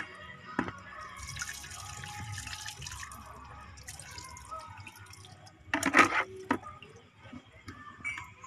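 Water poured from a plastic dipper over hands and chicken innards being rinsed, splashing and dripping into a basin. A short, louder burst comes about six seconds in.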